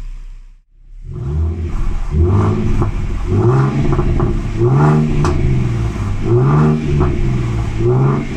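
Ford Mustang 3.7-litre V6 revved repeatedly in quick blips, the pitch rising and falling about every second and a half, after a brief gap near the start.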